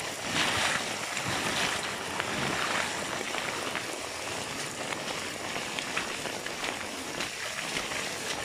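Heavy rain pouring down in a cloudburst: a steady, even hiss.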